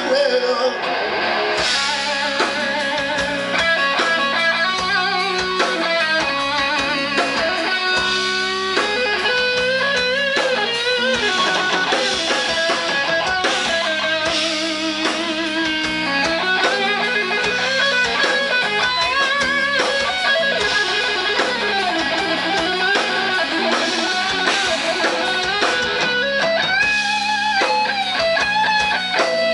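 Live rock band: an electric guitar takes a lead solo of bent, wavering notes over bass guitar and drums, with no singing.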